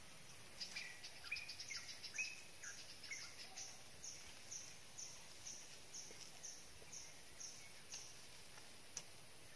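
A bird calling: a long series of short, high, downslurred notes repeated about two a second, with a few lower notes mixed in at first, over a steady high hiss. A single sharp click near the end.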